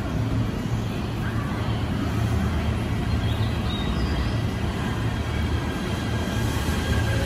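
JR 253 series 1000 electric train pulling out of the platform and gathering speed close by: a steady low rumble of the moving cars. A faint high whine comes in near the end.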